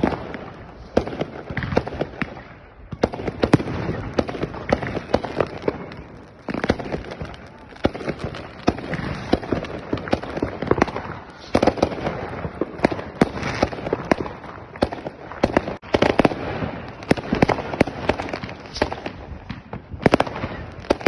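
Fireworks going off in a dense, irregular barrage: many overlapping bangs, pops and crackling of rockets and firecrackers, with a brief lull about three seconds in.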